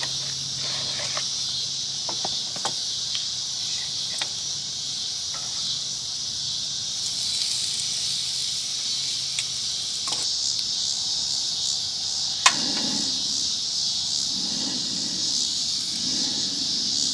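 Steady high-pitched chorus of insects, crickets among them, chirring on a summer evening. A faint low hum fades out about ten seconds in, and a single sharp click stands out about twelve seconds in.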